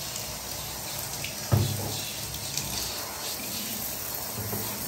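Handheld shower head spraying water onto a kitten in a bathtub, a steady hiss of running water splashing on the tub, with a single thump about a second and a half in.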